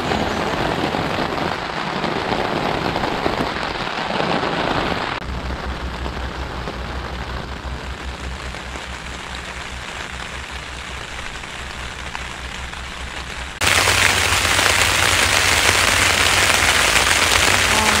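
Heavy rain pattering on a tent fly, heard from inside the tent. It is a steady hiss of drops that drops a little softer about five seconds in, then jumps to a louder downpour about four seconds before the end.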